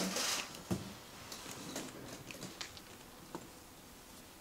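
Plastic packaging rustling, loudest in a short burst at the start, followed by faint scattered clicks and taps of things being handled and moved.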